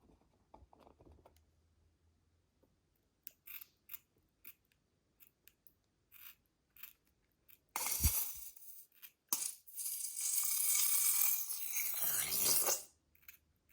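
Slime being handled by hand: scattered small sticky clicks, then a loud crackly, crinkling stretch lasting about three seconds near the end.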